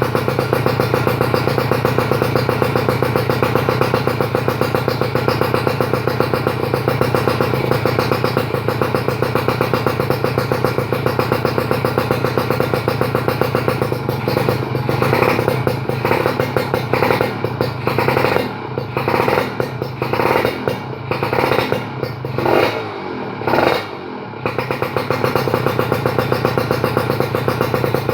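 Kawasaki KR150 two-stroke single-cylinder engine breathing through a stainless expansion chamber and Tyga aluminium silencer, idling with a steady pulsing note. About halfway through it is given a run of about a dozen quick throttle blips, each rising and dropping back, then it settles back to idle.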